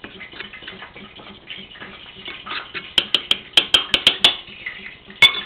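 Metal utensil scraping and stirring in a ceramic bowl of breadcrumbs while a fish cake is coated. About three seconds in comes a quick run of around eight sharp taps against the bowl, and near the end one louder clink that rings briefly.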